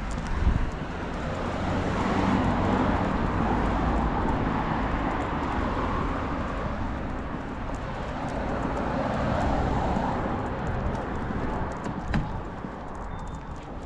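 Road traffic passing on the street: car engine and tyre noise swells about two seconds in, holds, and fades away after about ten seconds.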